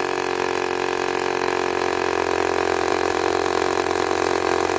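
Corded drill boring into a concrete step with a masonry bit, running steadily under load with an even motor whine over a rough grinding noise.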